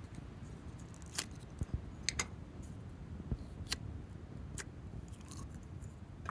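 Sharp plastic clicks and taps of fingers and fingernails on a hard plastic slime container as it is opened, about five separate clicks spread over the few seconds, over a low steady background noise.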